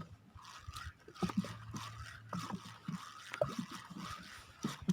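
Light water splashing and trickling, broken up by scattered small irregular knocks.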